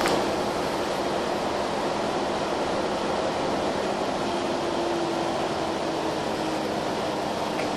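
Mercedes-Benz Citaro O530N city bus driving along, heard from inside the passenger cabin: steady diesel engine, drivetrain and road noise with a faint steady hum underneath.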